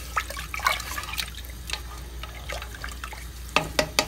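A silicone spatula stirring watery beef soup in a pressure cooker: liquid sloshing with scattered small clicks of the spatula against the pot. A few sharper knocks come near the end.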